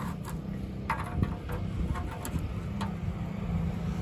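A handful of short, light metallic clinks and taps, mostly in the middle seconds, as a steel ring mould is handled at its rim. Under them runs a steady low engine drone.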